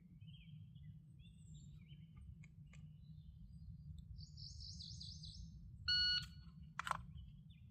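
Birds chirping over a low outdoor rumble; about six seconds in, a shot timer gives a short steady start beep, followed a moment later by a sharp click.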